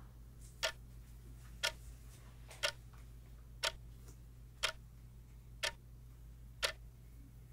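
A clock ticking steadily, one tick each second, over a faint low hum.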